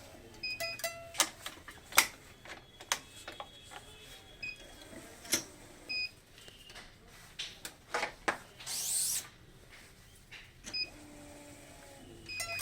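Badminton racket stringing: a run of sharp clicks, taps and pings, with short beeps three or four times and a brief rising hiss about nine seconds in.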